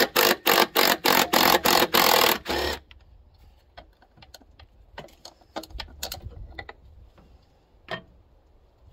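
Cordless impact wrench rattling in a quick series of short bursts for the first two and a half seconds, backing out a valve cover bolt on a Caterpillar 3406 diesel. After that come only faint clicks and clinks of the socket and bolts being handled, with one sharper click near the end.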